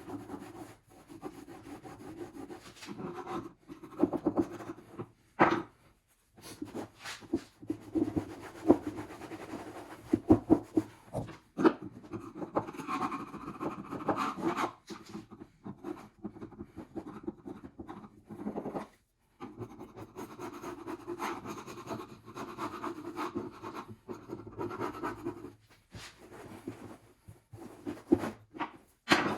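Scraping and rubbing on a Gold Cube sluice deck, working off old glue that brake cleaner has softened to a gel; uneven back-and-forth strokes with a few brief pauses.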